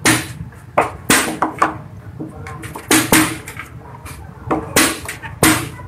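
Plastic chess pieces set down hard on a board and a chess clock's buttons pressed in alternation during fast play. About nine sharp knocks come at irregular short intervals, often in quick pairs of a move and a clock press.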